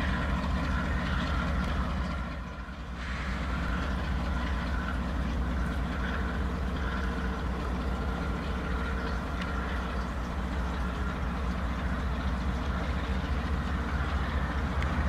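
Canadian Pacific diesel-electric locomotive running under load as it hauls a coal train, a deep steady engine drone. The level briefly drops about two and a half seconds in.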